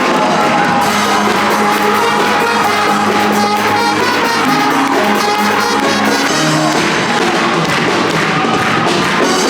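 Band music with brass, playing steadily with held notes and chord changes.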